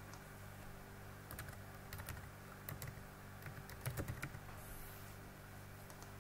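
Computer keyboard being typed on: a quick, irregular run of key clicks from about a second in to just past four seconds. A low, steady hum lies underneath.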